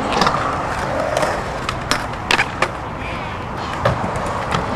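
Skateboard wheels rolling on smooth concrete, with sharp clacks of the board from pops, slaps and landings: one near the start, a quick run of three about halfway through, and a couple more near the end.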